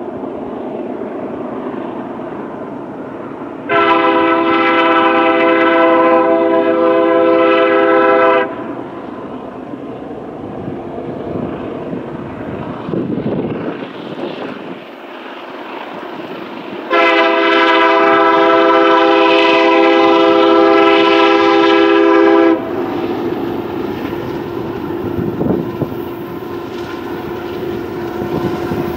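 Union Pacific diesel freight locomotive approaching, its air horn sounding two long blasts of a multi-note chord, about five seconds each, with the rumble of the train running on between them.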